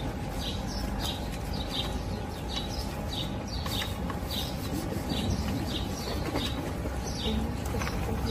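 A bird chirping over and over, short high chirps about twice a second, over steady outdoor background noise.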